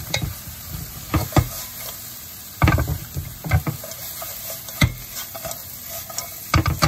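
Stir-frying in a wok: a wooden spatula stirring and tossing crisp fried pork chop pieces with diced peppers, the wok lifted and tossed, making irregular knocks and scrapes over a light sizzle.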